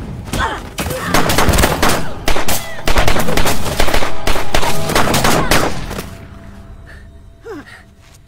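Gunfire: a rapid, overlapping string of handgun shots that stops about six seconds in.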